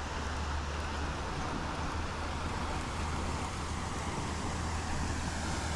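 Steady outdoor background noise: an even rush with a constant low hum beneath it, with no distinct events.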